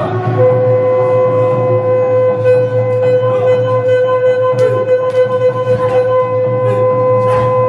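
Music with a wind instrument holding one long, steady, unbroken note that starts just after the beginning, over a low steady drone, with scattered sharp percussive strikes.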